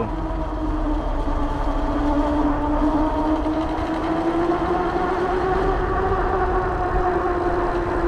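Fat-tire e-bike at speed on pavement: a steady whine from its drive and fat tyres that wavers slightly in pitch, over a low rumble.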